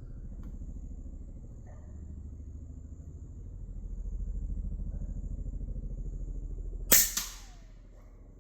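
A low, pulsing rumble runs underneath. About seven seconds in, the AEA Challenger Pro .25-calibre PCP air rifle fires once with a sharp, loud crack, followed right after by a second, quieter crack.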